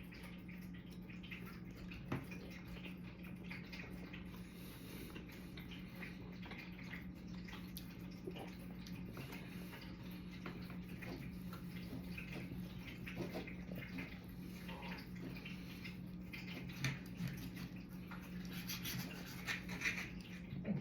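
Quiet room tone: a steady low hum under faint scattered clicks and taps, a few slightly louder near the end.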